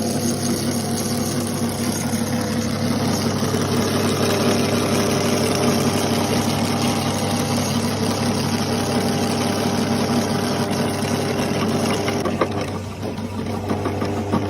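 Electric meat grinder running with a steady motor hum and a rough grinding noise as material is forced through. About twelve seconds in, the grinding noise eases off while the motor keeps running.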